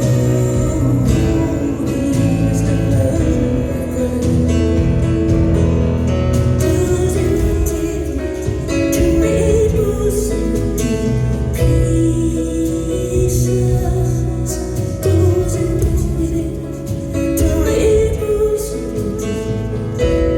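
Live concert music: a woman singing over full band accompaniment with a steady, heavy low end.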